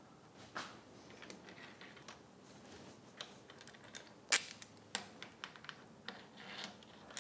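Irregular light metal clicks and clinks of steel clamping hardware (T-nuts, washers and nuts on threaded-rod studs) being set in the mill table's T-slots, with one sharper clink about four seconds in.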